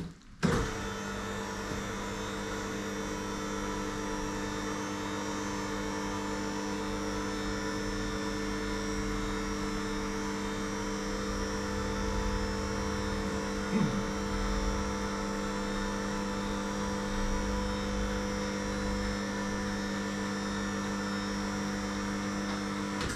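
Scissor car lift's motor running steadily as it raises the car, a constant droning hum that starts abruptly about half a second in.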